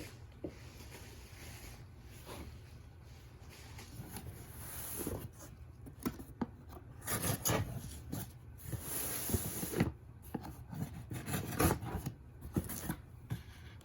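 Irregular rubbing and scraping with scattered knocks, typical of a package being handled and opened, getting busier about five seconds in.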